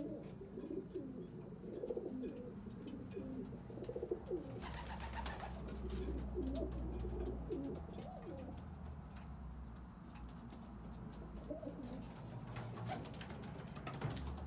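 Domestic racing pigeons cooing in the loft, a run of repeated low warbling coos. A low rumble runs under them for a few seconds around the middle.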